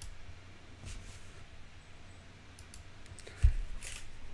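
Scattered faint clicks and taps, with one dull low thump about three and a half seconds in: handling noise close to a microphone, such as a phone or keyboard being worked.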